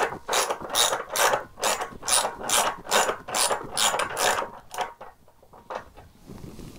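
Hand ratchet with a half-inch deep-well socket clicking as it is swung back and forth to spin a nut off a bolt, about two to three strokes a second. The strokes grow fainter and sparser after about four and a half seconds.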